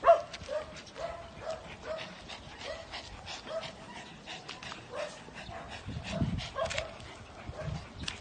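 Small dog yapping over and over in short, high barks, about two a second, the loudest one right at the start.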